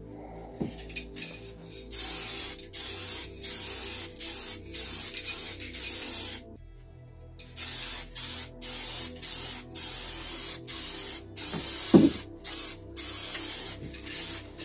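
Aerosol spray-paint can being sprayed onto a van panel in a run of short bursts of hiss, each under a second, with a pause of about a second partway through. There is a single sharp knock about twelve seconds in.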